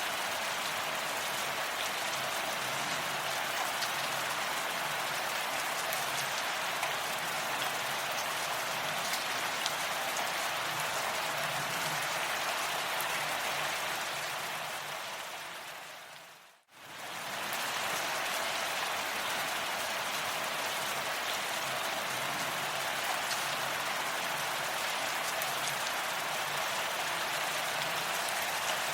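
Steady rain falling, an even hiss with fine drop patter. About two-thirds of the way through it fades away over a couple of seconds to silence, then comes straight back at full level, like the seam of a looped recording.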